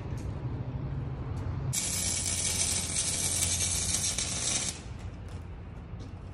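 Welding arc crackling and hissing on a steel exhaust pipe for about three seconds, starting and stopping abruptly: a joint being welded during a muffler delete.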